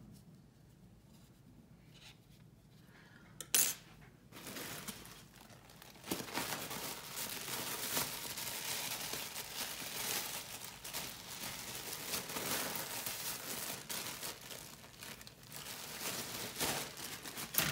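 One sharp click, then about ten seconds of steady rustling and crinkling with many small clicks, as a bag of toy stuffing is rummaged through.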